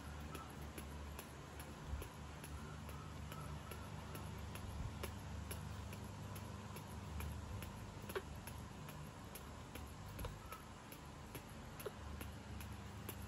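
Irregular light clicks and taps, a few a second, over a low steady hum.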